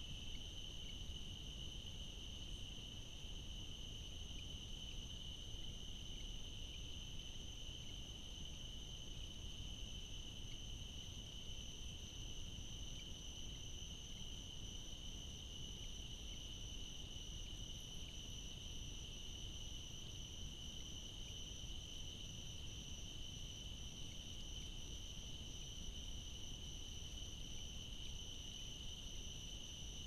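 Night insect chorus of crickets trilling in one continuous, steady high note, over a low background hiss.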